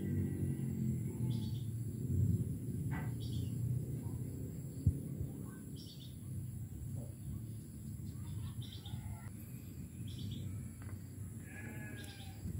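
Motor oil gurgling from a plastic bottle through a small funnel into a motorcycle engine's oil filler hole, with a single knock about five seconds in. Faint bleats from farm animals sound now and then in the background.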